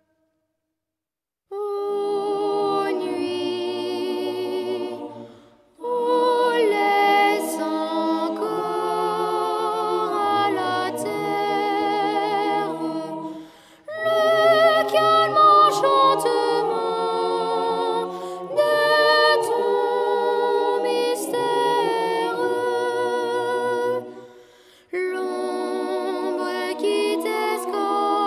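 Background music of a cappella voices singing with vibrato, in long phrases broken by a few short pauses, after a brief silence at the start.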